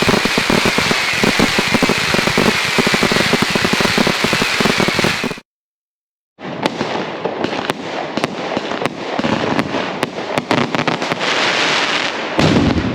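Firecrackers going off in a dense, rapid string of bangs. About five and a half seconds in, a one-second cut to silence is followed by another run of firecracker bangs, more widely spaced.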